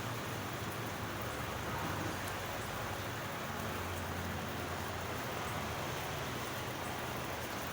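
Steady rainfall, an even hiss of rain with a low rumble underneath and a few faint drop ticks.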